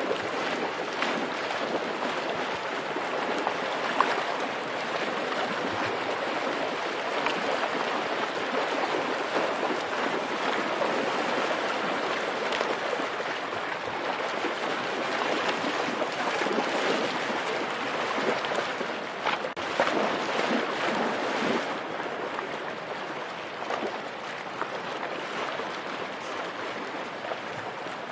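Shallow rocky river rushing steadily, with splashing as a pit bull bounds through the water chasing salmon. Sharper splashes stand out about four seconds in and again around twenty seconds in, and the water is a little quieter near the end.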